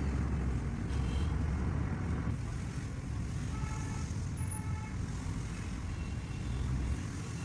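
Road noise heard inside a moving car: a steady low rumble of engine and tyres, with faint city traffic outside.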